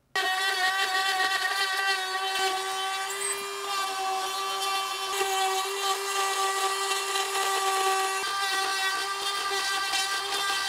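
Handheld power tool running steadily with a whine that wavers slightly as it works, taking down the high spots on the inside of a hatch-opening frame.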